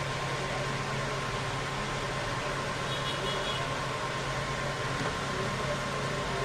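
Steady fan-like hiss with a low hum and a faint, thin high tone, unchanging throughout.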